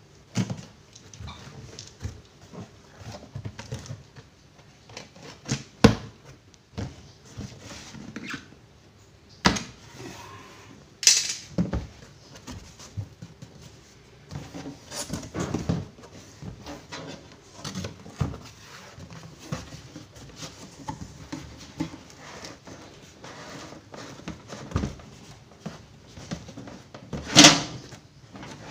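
A cardboard carton being opened by hand: tape being cut and torn, cardboard flaps scraping and rustling, with scattered knocks and a few sharp thuds. Near the end there is a louder knock as the black sheet-metal amplifier case is handled in the box.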